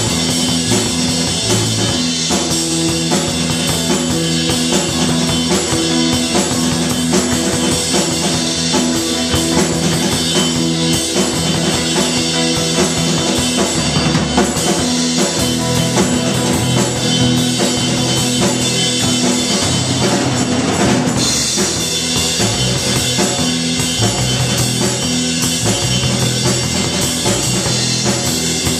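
Live rock band playing loudly: a drum kit with bass drum and cymbals drives a steady beat under held bass and guitar notes that shift every few seconds.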